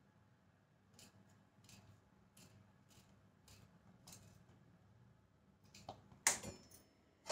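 Faint ticks, about one every two-thirds of a second, then a single sharp clack near the end.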